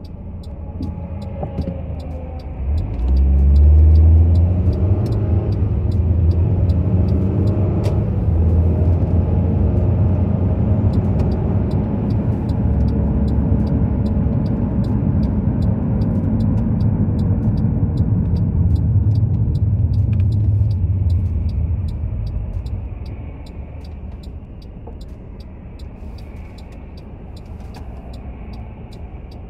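Car cabin sound of a car pulling away and accelerating: engine and road rumble rise about two to four seconds in, hold steady while driving, then ease off about 22 seconds in as the car slows. A faint, fast, regular ticking sounds throughout.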